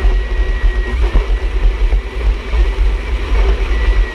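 Personal watercraft (jet ski) engine running under way, with a heavy pulsing low rumble and a steady high whine.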